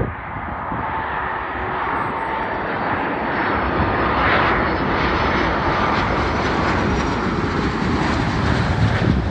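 Airbus A330 Voyager's twin Rolls-Royce Trent 700 turbofans on landing approach, a steady jet rumble and rush with a faint whine. It grows louder toward the end as the airliner passes low and close.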